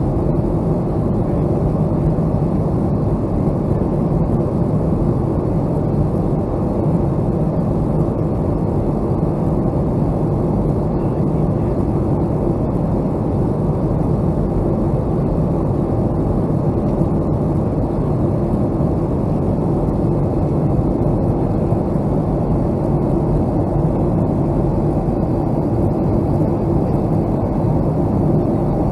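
Boeing 757-200 airliner in flight: a steady, unbroken rumble of engine and airflow noise, heaviest in the low end, with no change in level.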